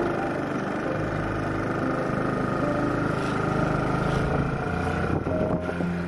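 Steady engine and road noise of a moving vehicle.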